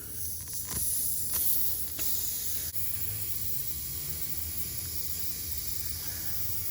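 Air hissing out of a pickup truck tire through the puncture hole as the screw is pulled from the tread, growing over the first second or two and then steady. A few light clicks from the pliers come in the first two seconds.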